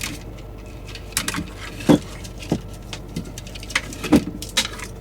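Scattered light clicks, knocks and rattles of hands working a speaker's AC power cord wire loose and pulling it out, with a sharper knock about two seconds in and another near the end.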